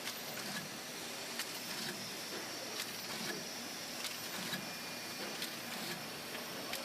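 Bottle filling line and glass grinder machinery running steadily, with sharp, irregular clinks and clicks about once or twice a second.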